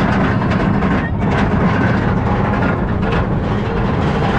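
Kumba roller coaster train climbing, heard from inside the car: a steady mechanical rumble from the train on its track.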